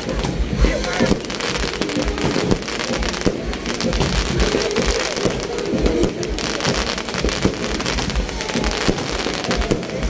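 Aerial fireworks going off: dense crackling and popping from bursting shells over repeated low booms.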